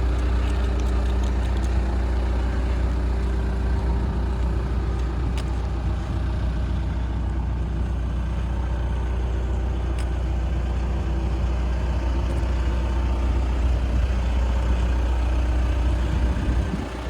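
2003 John Deere 310SG backhoe loader's diesel engine running steadily with a deep, even drone.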